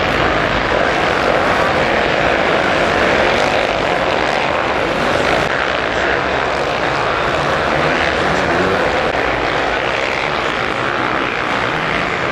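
Many motocross bike engines racing at once, blending into a loud, steady buzz with engines revving up and down.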